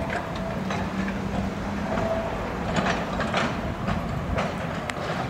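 Narrow-gauge electric tram running away along the track with a steady motor hum, its wheels clacking over the rail joints several times in the second half.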